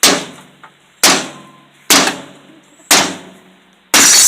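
A microwave oven struck hard four times, about a second apart, each blow on the metal casing ringing briefly. Near the end its glass gives way and shatters in a long crash.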